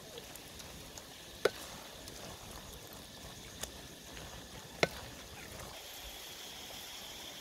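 Wooden spatula stirring fried cabbage and egg in a metal wok, knocking sharply against the pan twice, about a second and a half in and again near five seconds in, over a low sizzle of frying.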